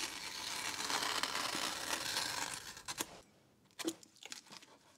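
A craft knife blade slicing through the paper paste-down along a hardcover book's gutter: a steady scratchy cutting for about three seconds that stops abruptly, followed by a few faint clicks.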